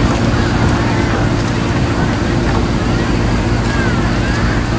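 Steady low hum with a noisy rumble, and faint voices murmuring underneath.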